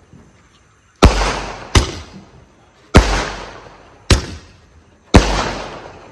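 Multi-shot aerial firework cake firing: a shell launches with a bang about every two seconds, each followed by its burst in the air about a second later. Each bang fades off over a fraction of a second.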